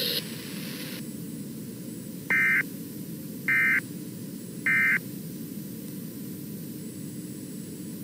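Three short bursts of Emergency Alert System digital data tones, each about a third of a second and a little over a second apart: the end-of-message code that closes the alert. Steady hiss runs underneath.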